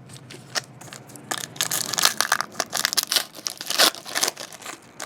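A trading card pack being torn open by hand, its wrapper crinkling and crackling from about a second in, loudest near the end.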